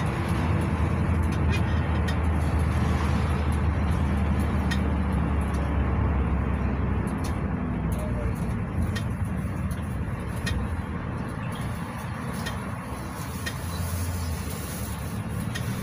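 Cabin sound of a 2017 GAZelle Next A64R45 minibus driving in town: the steady drone of its Evotech engine with road noise and small rattles now and then. The engine drone eases about halfway through.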